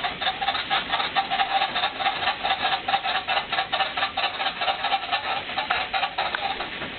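Home elliptical trainer worked by a toddler: rapid, uneven clicking from its moving pedals and handlebar linkage over a pulsing squeak.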